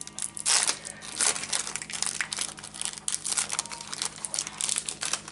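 Foil wrapper of a Pokémon card booster pack crinkling as it is worked open by hand, a dense run of irregular crackles.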